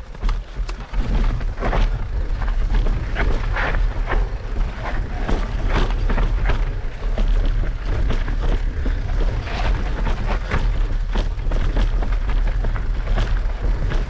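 Electric mountain bike ridden over rough trail: a steady low rumble of wind and vibration on the rider's camera microphone, with frequent rattles and knocks from the bike over the ground.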